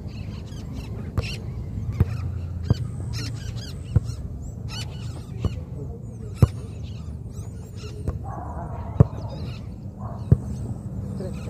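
A football being kicked and headed back and forth in the air, single dull thuds at irregular gaps of one to two seconds. Birds chirp over it, most in the first half.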